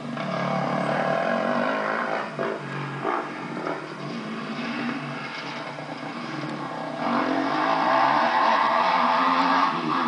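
Motocross dirt bike engine revving and easing off as the bike is ridden through the track's corners, getting louder from about seven seconds in.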